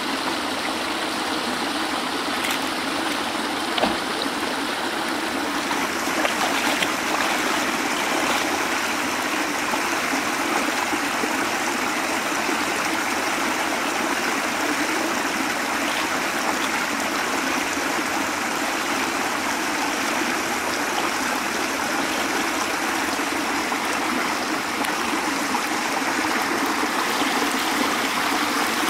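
Water pouring steadily out of concrete culvert pipes and splashing into a shallow canal, with a single brief knock about four seconds in.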